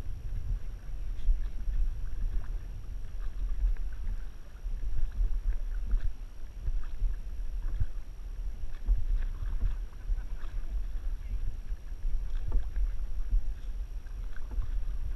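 Dragon boat moving on calm water, with wind buffeting the microphone in an uneven low rumble and faint scattered splashes of paddles and water against the hull.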